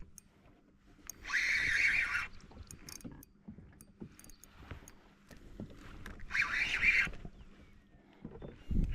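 Fishing reel drag buzzing in two short runs, about a second each, as a hooked barramundi pulls line.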